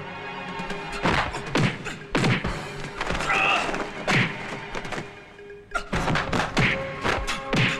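Film fight sound effects: a quick series of about ten punch and block impacts, with a short lull about five seconds in, over background music.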